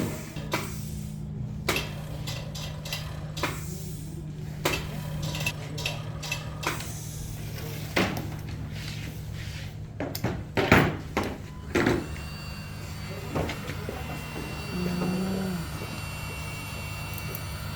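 Oil rotary vane vacuum pump running with a steady hum. Irregular clicks and knocks come through over the first twelve seconds, loudest near the middle, then it runs more steadily, with a faint high whine near the end.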